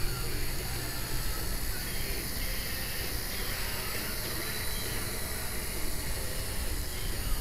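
Blade mQX quadcopter's small electric motors and propellers running, heard as a steady whirring hiss with a faint high whine.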